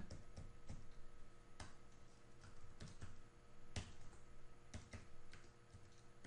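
Faint computer-keyboard keystrokes, sharp clicks at irregular intervals of roughly a second, over a faint steady electrical hum.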